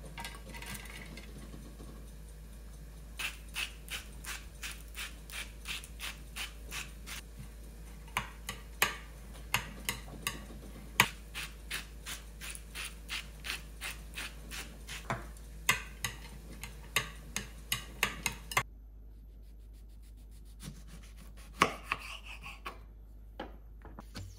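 A hand-twisted salt mill grinding salt crystals over shredded carrots: a long run of crunchy, ratchet-like clicks, about two a second. It stops about three-quarters of the way through, leaving only a few scattered knocks.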